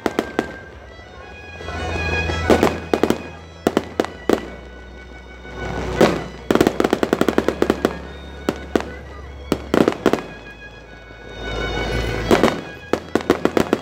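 Fireworks going off, in several rounds a few seconds apart. Each round is a swelling rush of noise followed by sharp bangs and rapid strings of crackles from crackling stars bursting overhead.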